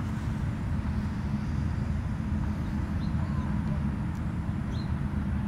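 Steady low engine drone of distant motor traffic, with a couple of faint high chirps about three and five seconds in.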